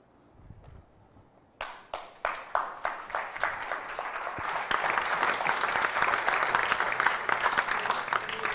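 A congregation applauding: a few scattered claps about a second and a half in, quickly building into full, steady applause.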